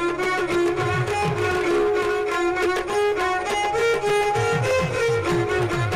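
Instrumental interlude of Manipuri dance music: a bowed-string melody over a steady drum rhythm, with no singing.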